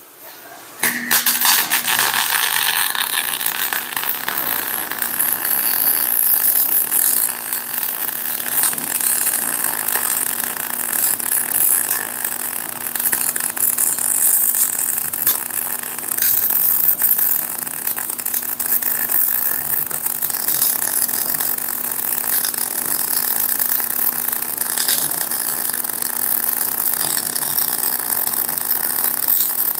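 CO2-shielded MIG welding arc crackling steadily as a bead is laid on a steel axle housing. The arc strikes about a second in, with a steady low hum underneath.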